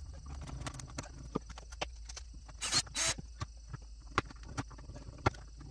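Light clicks and knocks of hands working at the wall inside a travel trailer's storage hatch, with two short scraping rustles close together about halfway through.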